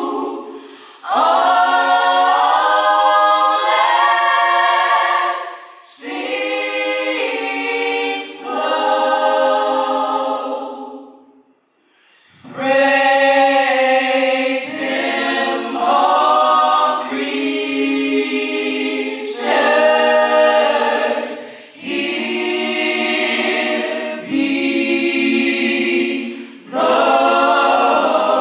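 Choir singing a cappella in phrases broken by short breaths, with a longer pause near the middle.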